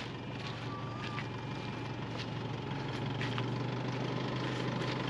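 4x4 engine running at low revs while slowly manoeuvring a caravan into position, a steady low hum that grows gradually louder.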